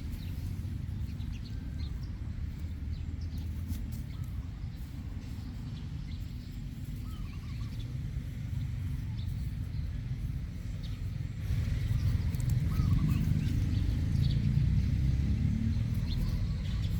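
Steady low background rumble that grows louder about two-thirds of the way in, with a few faint short chirps above it.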